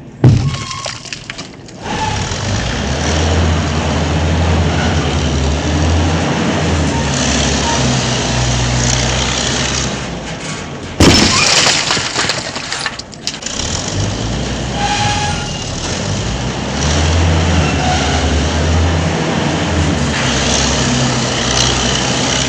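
Demolition with heavy machinery: a large machine's engine running steadily while material cracks and breaks up. A sudden loud crash comes right at the start and another about halfway through.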